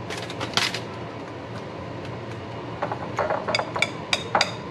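Kitchen dishes and utensils knocking and clinking: a few knocks near the start, then a quick run of sharp, ringing clinks over the last couple of seconds.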